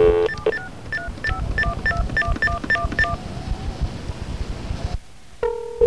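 Telephone touch-tone (DTMF) keypad beeps: about a dozen quick two-note tones as a phone number is dialed, over line hiss, after a buzzy tone cuts off just after the start. Near the end, after a brief quiet, a steady ringing tone starts on the line.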